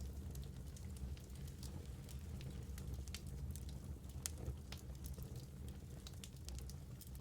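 Wood fire burning in a fireplace: a steady low rumble of flame with frequent small irregular crackles and pops.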